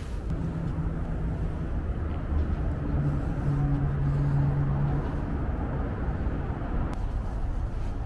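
Steady low rumble of a moving vehicle, with a faint low hum that comes and goes.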